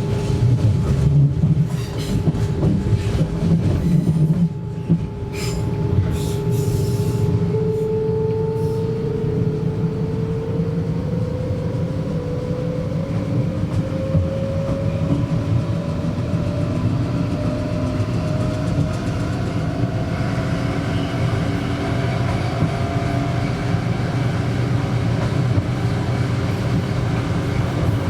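DSB SA S-train's Siemens GTO inverter traction drive whining, its tone rising slowly as the train gathers speed, over the steady rumble of wheels on track. Several sharp clicks from the wheels and track come in the first few seconds.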